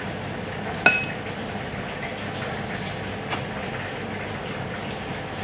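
A ceramic dish clinks once about a second in, a sharp hit that rings briefly, and there is a softer tap a couple of seconds later, over a steady background hum.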